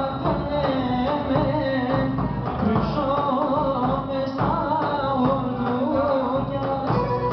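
Live Pontic Greek dance music: a male singer singing with a daouli, a large two-headed bass drum, beating a steady dance rhythm under him.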